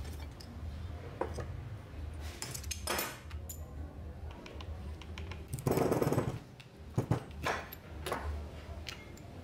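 Metal clinks, knocks and scrapes of locking pliers and small steel parts being handled on an old electric chainsaw's gear housing. A louder clatter of about half a second comes around six seconds in, followed by a sharp knock.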